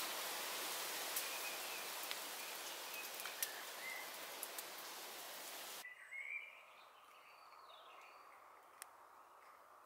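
Outdoor woodland background: a steady hiss with a few small ticks and faint bird chirps, which drops away suddenly about six seconds in to a quieter background with short birdsong chirps.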